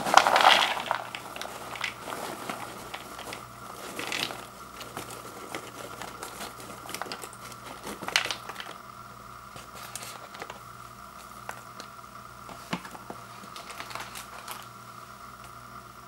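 Paper microwave-popcorn bag crinkling as popped popcorn is shaken out of it and tumbles into a plastic bowl. Loudest in the first second, then scattered crinkles and rustles, with louder ones about 4 and 8 seconds in, growing sparser toward the end.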